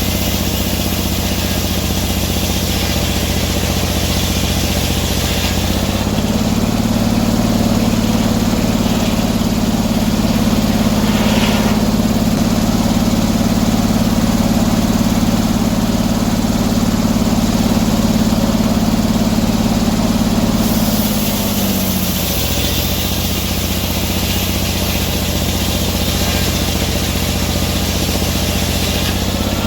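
A motor engine idling, sped up about six seconds in and held at the higher speed, then eased back to idle around twenty-one seconds.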